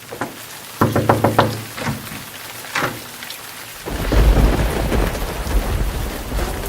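Thunderstorm: sharp cracks of thunder about a second in over falling rain, then from about four seconds in heavy rain with a deep, continuous rumble of thunder.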